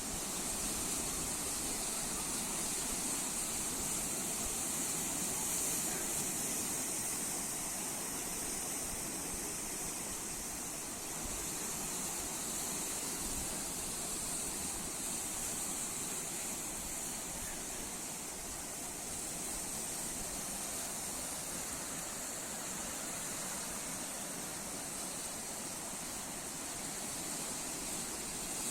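Steady, unbroken rushing of sea surf, with no single wave standing out.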